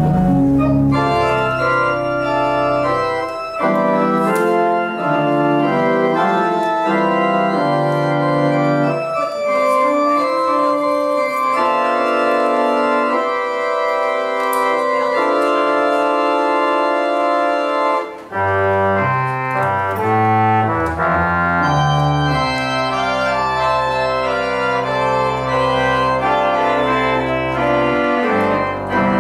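Church organ playing slow, sustained chords. The low bass notes drop out for a long stretch and return about two-thirds of the way through.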